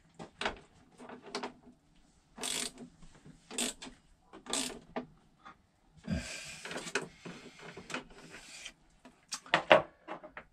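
Hands working on battery cables and terminal hardware: a series of small clicks and knocks, brief scrapes, and a couple of seconds of rustling past the middle, with one sharp knock near the end.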